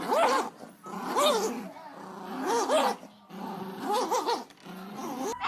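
A dog vocalizing in four drawn-out calls about a second apart, each wavering up and down in pitch.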